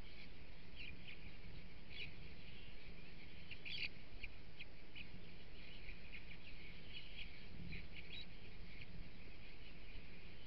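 A flock of bramblings calling: many short chirps, scattered and overlapping, over steady low background noise.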